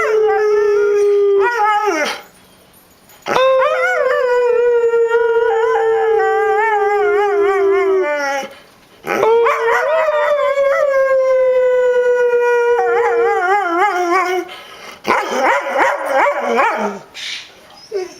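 A dog howling: three long drawn-out howls, each slowly sinking in pitch, then a few short yelping barks near the end.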